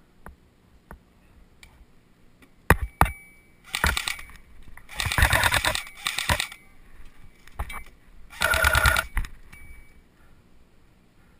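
Electric airsoft rifles firing: two sharp single cracks, then five rattling full-auto bursts over the next five seconds. The longest burst runs about a second.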